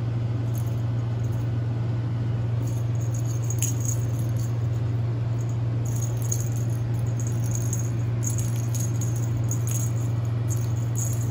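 Small bell on a cat's wand toy jingling on and off as a kitten bats and chases it, over a steady low hum.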